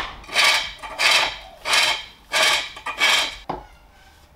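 A green-wood bowl being turned on a spring pole lathe: five rhythmic rasping cuts of the turning tool into the wood, one on each downstroke of the treadle as the bowl spins toward the turner, about one and a half a second. A single sharp wooden knock follows near the end.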